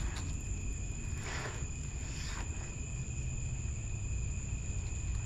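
Crickets chirring steadily at night over a steady low hum, with a couple of faint soft scrapes about one and two seconds in.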